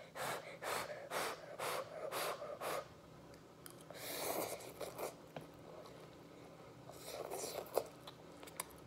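A child's short, sharp breaths through the mouth, about two a second for the first three seconds, while eating spicy instant noodles: panting to cool a burning mouth. A longer puff of breath comes about four seconds in, and softer mouth noises near the end.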